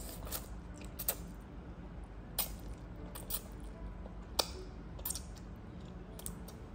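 Short wet smacks and clicks of a toddler slurping and chewing spaghetti, about half a dozen, spread irregularly over a low steady hum.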